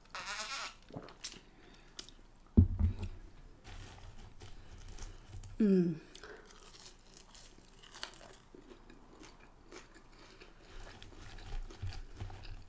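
Close-up eating sounds: a sip from a drink at the start, then a heavy thump about two and a half seconds in as the glass mug is set down on the wooden board. A short falling vocal hum comes near the middle, followed by soft chewing of French fries.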